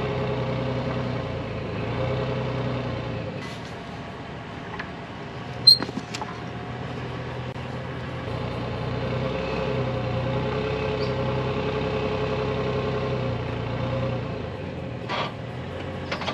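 Car engine idling steadily, with a single sharp clank about six seconds in and a lighter knock near the end.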